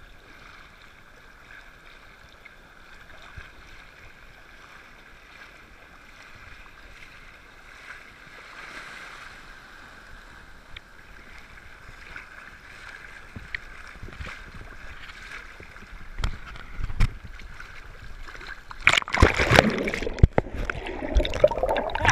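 Shallow sea surf sloshing around a camera held at the water's surface, building gradually, with a wave breaking over the camera in loud splashing near the end.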